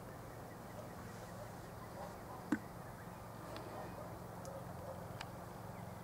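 Quiet outdoor background with a faint steady low hum and a few brief sharp ticks, the loudest about two and a half seconds in.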